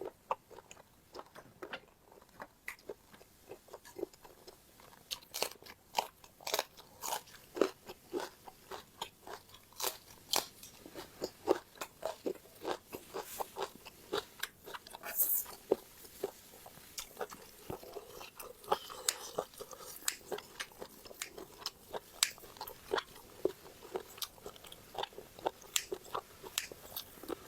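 Close-miked eating of squid with fresh vegetables: a steady run of crisp crunches and moist chewing clicks, several a second.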